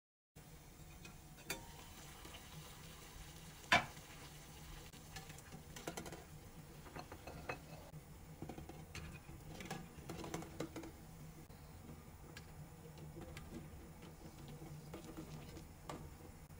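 Eggs knocking and clinking against a copper saucepan of water as they are put in one by one. The knocks are scattered, the loudest about four seconds in, over a faint steady hiss.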